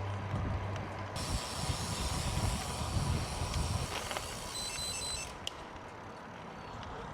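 Riding noise on a road bike at speed: a steady low rumble and a broad rushing hiss that drops away after about five seconds. A few short, high electronic beeps come about four and a half seconds in.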